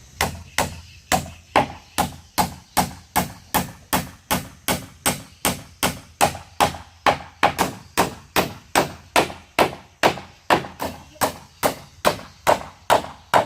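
A hand tool striking wood in rapid, even blows, about two and a half a second, each with a short ring.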